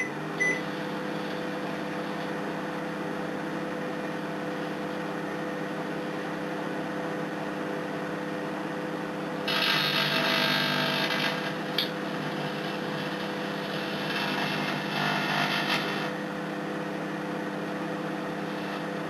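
An old LG microwave oven running with a steady electrical hum. About ten seconds in, and again around fifteen seconds, come bursts of crackling noise from arcing and burning inside the cavity.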